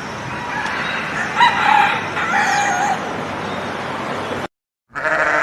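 Rooster crowing once over a steady background hiss, and the hiss cuts off suddenly. Near the end another animal call begins.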